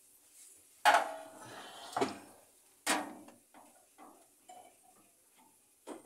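Four sharp metallic knocks and clatters from the stainless-steel sheet-metal cabinet of a microwave oven being handled and unscrewed. The first, about a second in, is the loudest and rings briefly, with fainter small clicks near the end.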